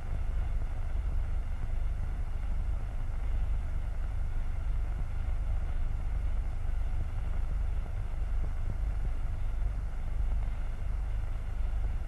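Ferguson tractor engine running steadily under load while ploughing, a continuous low rumble with no change in pace.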